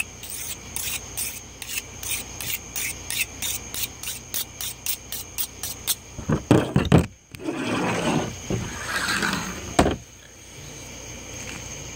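Knife blade being sharpened on a handheld whetstone: quick, even rasping strokes, about three a second. About halfway in the strokes stop, and a few loud knocks follow, then a couple of seconds of rustling handling noise and a sharp click.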